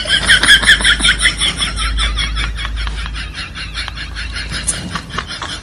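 Dachshund puppy whimpering in a rapid run of short, high-pitched squeaky cries, about five a second, growing fainter.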